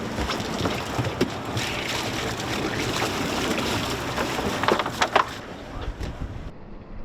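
Wind and choppy water noise on a small anchored fishing boat, with a few sharp knocks a little under five seconds in.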